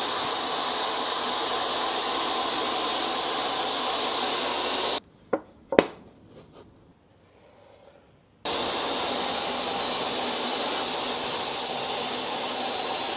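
DEWALT 10-inch table saw running with a steady high whine while trimming the edges of a plywood case flush. About five seconds in, the saw sound cuts off suddenly. Two sharp wooden knocks follow as plywood pieces are handled, and the saw sound starts again at about eight and a half seconds.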